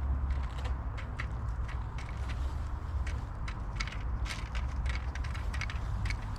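Irregular mechanical clicking and creaking, about three or four clicks a second, over a steady low rumble.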